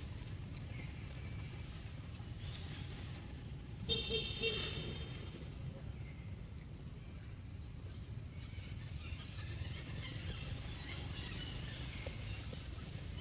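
A monkey gives one short, high-pitched squeal about four seconds in, over a steady low rumble, with faint scattered high chirps later.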